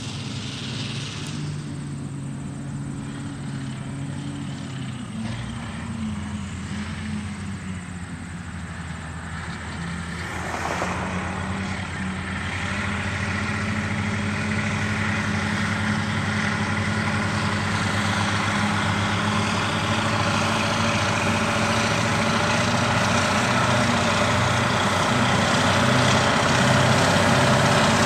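Diesel engines of Cat 637 twin-engine scrapers running under load while loading dirt. The engine note drops about five seconds in, then grows steadily louder as a scraper comes closer.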